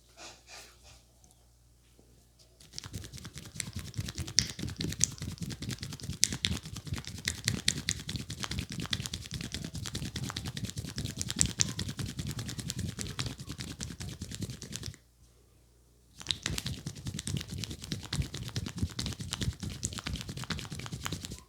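Hands working rapidly on a head and hair in a vigorous head massage: dense, fast tapping and rubbing on the scalp. It starts about three seconds in and stops for about a second near the two-thirds mark before going on.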